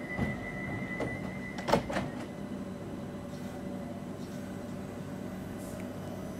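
London Overground Class 378 electric train's sliding passenger doors closing. A high warning tone sounds, then the doors shut with a sharp thud about two seconds in, after which the stationary train hums steadily.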